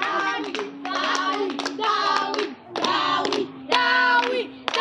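Children chanting in short sung phrases with brief pauses between them, clapping their hands throughout.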